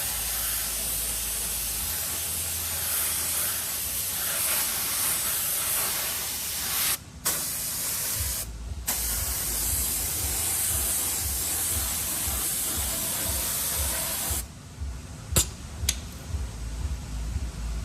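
Clear coat being sprayed onto a freshly painted alloy wheel repair: a steady hiss, broken briefly about halfway through, then stopping near the end, followed by a couple of sharp clicks.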